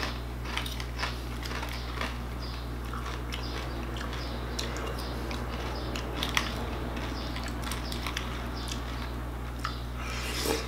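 Close chewing and crunching of a mouthful of Frosted Flakes cereal, with scattered crisp clicks and a few sharper taps of a plastic spoon in a plastic bowl, over a steady low hum.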